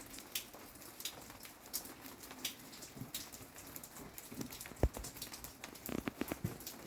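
Freezing rain falling: a steady hiss with irregular ticks and patters of drops hitting surfaces, and a louder single knock about five seconds in followed by a few softer knocks near the end.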